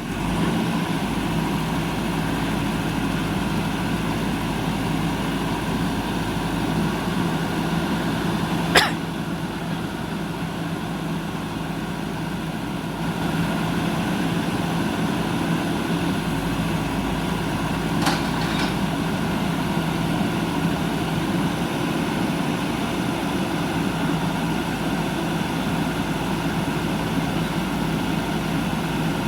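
Heavy-equipment diesel engine running steadily at constant speed, with two sharp knocks: a loud one about nine seconds in and a fainter one about eighteen seconds in.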